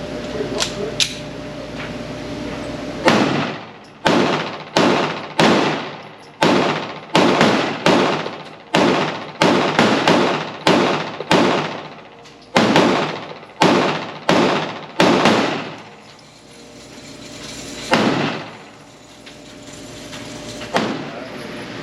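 A 9mm PSA Dagger Compact pistol firing a rapid string of about twenty shots starting about three seconds in, each shot followed by an echoing decay. After a short pause come two more single shots.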